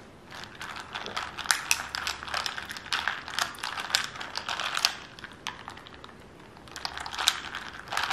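Ice cubes clicking and rattling against a glass of iced coffee as a straw stirs them: a quick run of small clicks, pausing for about a second and a half near the middle and then starting again.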